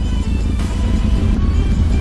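Music playing over the low, steady running of a motorcycle engine on a gravel trail.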